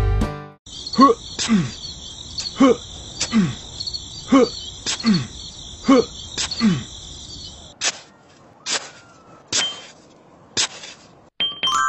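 Cricket chirring with a tiny hoe chopping into sand in regular strikes, each followed by a short downward-sliding groan-like tone. Near eight seconds the crickets stop, and four or five more spaced strikes of the hoe follow on their own.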